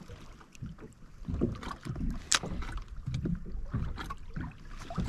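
Small waves lapping and slapping against a plastic sit-on-top kayak hull in uneven surges, with wind buffeting the microphone. A single sharp click stands out about two and a half seconds in.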